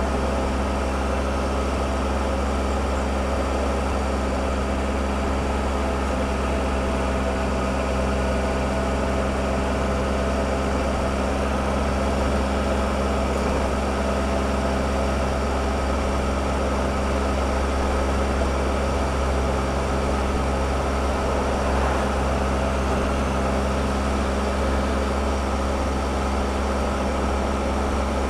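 Triumph Explorer motorcycle's three-cylinder engine running at a steady, even pace while riding, mixed with a continuous rush of wind and road noise. There are no changes in revs.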